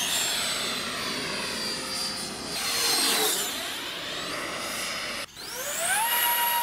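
Electric ducted-fan RC jet flying past, its fan whine sweeping in pitch as it passes. About five seconds in, the sound cuts abruptly to a ducted fan spooling up: a whine climbing in pitch, then holding steady at full power.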